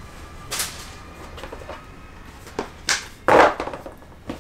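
Thick cardboard player-aid sheets and cards from a board-game box being handled and set down on a wooden table: a few short rustles and slaps, the loudest about three and a half seconds in.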